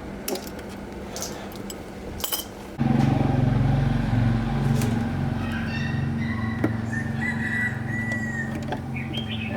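A few light clicks and clinks, then about three seconds in a motor starts abruptly and runs on with a steady low hum.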